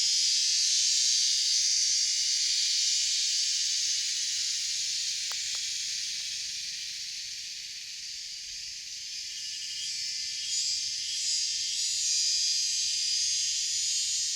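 Dense insect chorus, a steady high-pitched shrill drone. It eases a little midway and builds again near the end.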